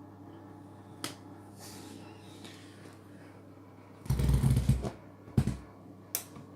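Candy washing machine in its rinse: a steady low hum from the machine, with a sharp click about a second in and near the end. A little after four seconds comes a loud low rush with knocks, and a shorter one about a second later, as the drum turns the wet washing.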